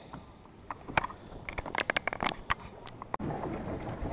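Irregular clicks, taps and light scrapes of fishing gear being handled in a small boat. About three seconds in the sound changes abruptly to a steady hiss of wind and water.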